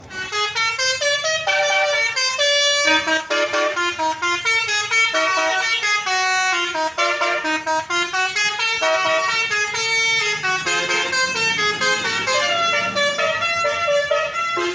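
Basuri musical air horn on a Sedya Mulya tour bus playing a loud tune: quick stepped notes, several horn tones often sounding together as chords.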